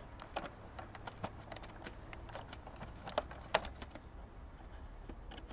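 Light plastic clicks and taps at irregular intervals as a toy fire engine's white plastic ladder is handled and lifted from the truck's deck, the sharpest two a little after three seconds in.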